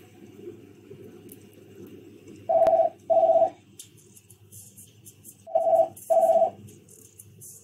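Two pairs of short electronic beeps, each pair two quick beeps of the same tone, the pairs about three seconds apart. Beneath them runs a low steady underwater rumble, with a faint crackle of bubbles from about halfway through.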